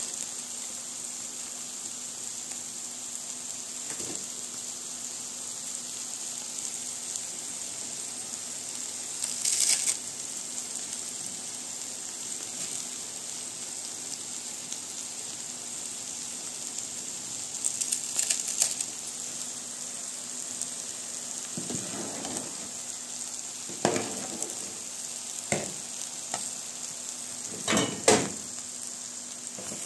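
A pan of green beans, soy mince and onion frying with a steady sizzle. A few short knocks and clatters of utensils against the pots come through, most of them in the last eight seconds.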